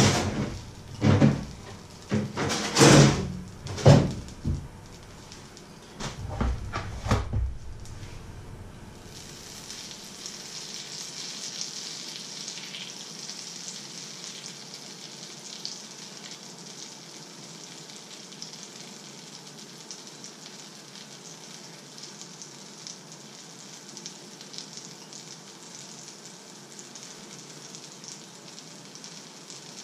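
Several loud knocks and clatter in the first seven seconds or so, then butter sizzling steadily as it melts in a hot frying pan.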